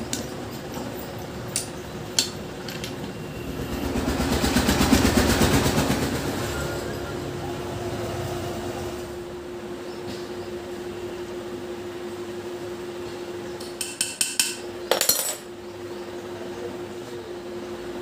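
Steel gears and shafts clinking against the aluminium crankcase as a motorcycle gearbox is assembled by hand: a few light clicks early, then a quick cluster of ringing metal clinks near the end. A steady hum runs underneath, and a passing engine swells and fades about four seconds in.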